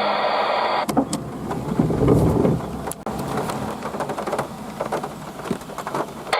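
Rain in a thunderstorm, with a low thunder rumble building to its loudest about two seconds in, and scattered sharp drop impacts through the rest.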